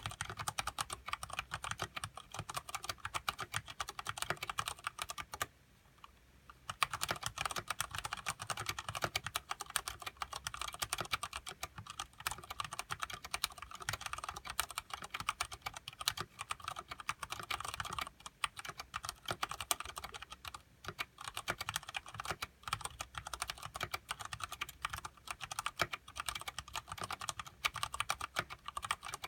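Continuous fast typing on a Ducky Shine Mini mechanical keyboard with Cherry MX Brown switches and thick PBT keycaps: a dense stream of key clacks, with one brief pause about six seconds in.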